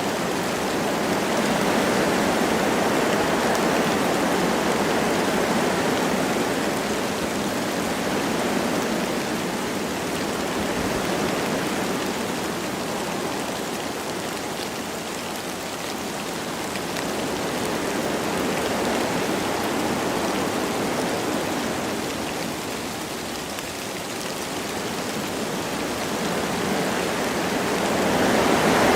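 Wind blowing through forest trees with light rain: a steady rushing noise that swells and eases in slow gusts, rising again near the end.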